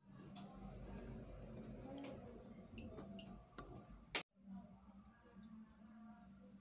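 Crickets chirping in a steady, pulsing high trill, with some rustling in the first few seconds and a single sharp click about four seconds in.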